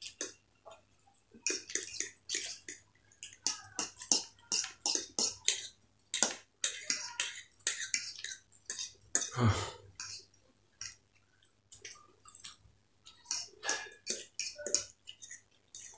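Two people eating chow mein noodles with forks: a steady run of short, wet slurps and chewing smacks mixed with forks scraping and tapping on plates. About halfway through comes one louder, deeper throat sound.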